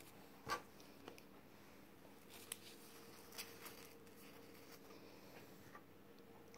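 Near silence: faint rustles and a few soft ticks of satin ribbon being handled and folded by fingers, over a faint steady hum.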